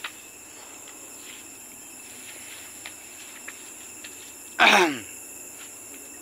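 Steady night chorus of crickets and other insects, a few high unbroken trilling tones. Just past the middle, one loud, short cry falling steeply in pitch cuts across it.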